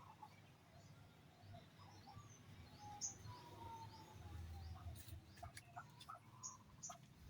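Faint bird chirps and calls, with a few soft clicks in the second half.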